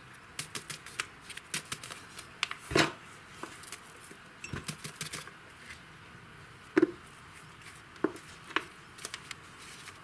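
Potting soil being scooped with a small ceramic mug and packed into a clear plastic seedling cup over a plastic basin: soft scraping and rustling of soil with light clicks and taps of the cups. There are a few sharper knocks about three and seven seconds in.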